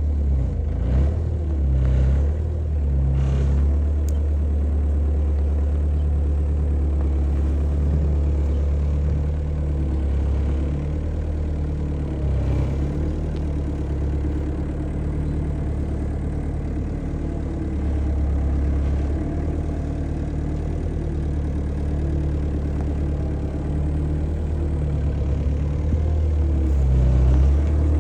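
Gehl 4840E skid steer's diesel engine running steadily, with a few faint knocks in the first seconds and the engine note picking up slightly near the end.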